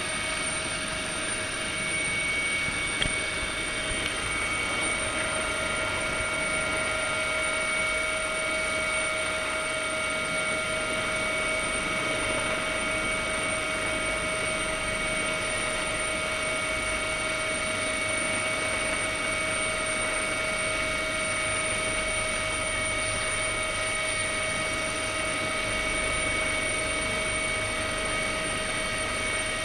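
AgustaWestland AW139 helicopter heard from inside the cabin in flight: steady rotor and turbine din with a constant high whine from the drivetrain. There is a single short click about three seconds in.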